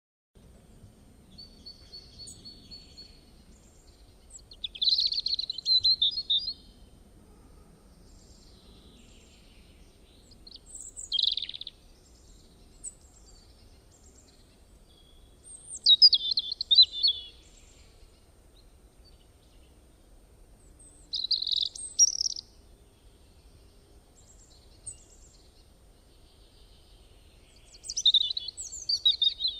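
Small birds chirping in short, quick phrases, five bursts in all, each lasting a second or two, over faint steady background noise.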